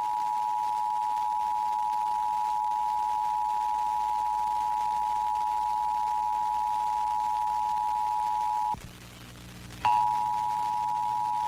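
Emergency Alert System attention signal: the steady two-tone 853 Hz and 960 Hz alert tone. About nine seconds in it cuts out for about a second, leaving only a low hum, then comes back with a click.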